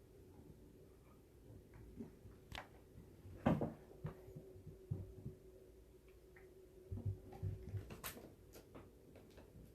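Faint scattered clicks and soft knocks of small handling noises, the loudest a thump about three and a half seconds in and a cluster of low knocks near the end, over a faint steady hum.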